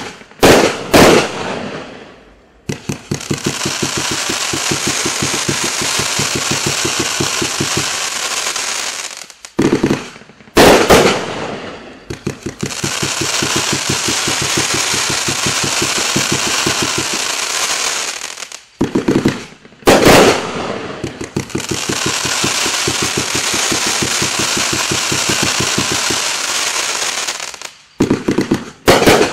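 Sky Painter 'Stink Eye' 140-shot 500-gram fireworks cake firing. Groups of a few loud, heavy bangs alternate with long runs of rapid-fire shots over a dense crackling hiss, and the pattern repeats about every ten seconds.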